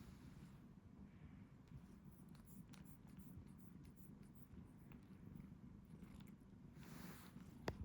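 Domestic cat purring faintly and steadily, with a few small clicks and a brief soft rustle near the end.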